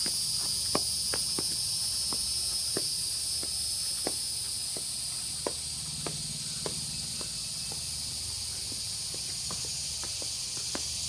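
Steady, high-pitched chorus of insects, with scattered sharp clicks throughout.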